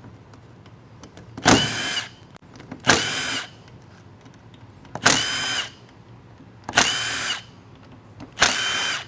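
Cordless drill-driver spinning out the bolts of an automatic transmission's valve body in five short whirring bursts, one every second and a half to two seconds.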